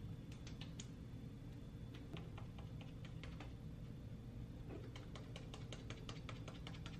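Light, quick tapping of makeup being patted onto the face with fingertips and a cushion-compact puff. The taps are scattered at first, then come fast, about six a second, from about five seconds in, over a steady low hum.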